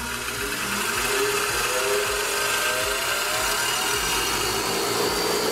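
Ryobi 8-inch bench grinder fitted with a wire wheel brush, switched on: its motor whine slowly rises as it spins up, then it runs steadily with a hum and a wiry hiss from the spinning brush.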